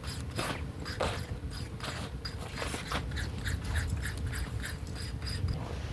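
Irregular clicks, scrapes and rustling as a goat is held and pressed down on a plastic sheet for hoof trimming.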